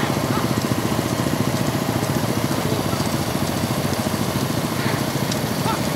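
Motorcycle engines running at a steady cruising speed, a dense, fast, even engine pulse.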